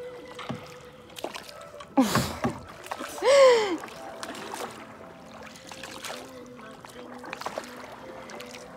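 A young woman's sudden cry about two seconds in, sliding down in pitch, then a louder high cry a second later that rises and falls, breaking into laughter. Around it come soft paddle knocks and water noise from a canoe.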